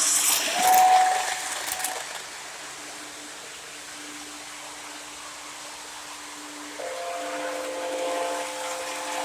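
O gauge Lionel model locomotive's sound effects: a loud burst of steam hiss in the first two seconds, then, about seven seconds in, a steady whistle of several held notes that runs on.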